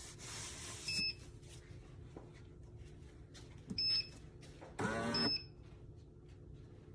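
Café Affetto automatic espresso machine's control panel giving three short electronic beeps as its buttons are pressed, with a brief rising mechanical whir from the machine near the third beep. The machine is being coaxed into brewing after its display asks for the beans to be stirred.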